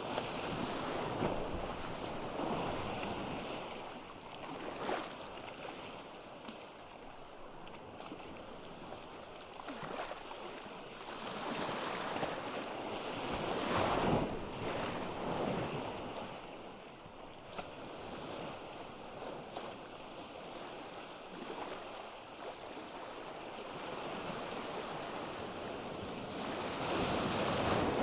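Ocean waves washing onto a beach, the surf swelling and ebbing every few seconds, with some wind.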